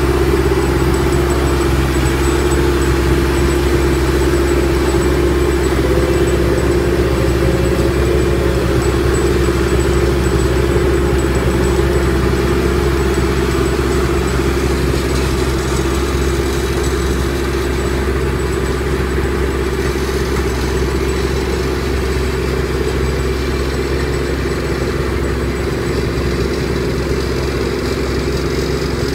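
A construction machine's engine running steadily at an even pitch, with a constant hum and no revving.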